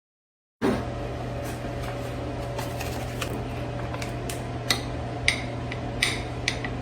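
Steady hum of a kitchen appliance with about eight light clicks and clinks of kitchenware scattered through it. The sound cuts in sharply after a brief silence at the start.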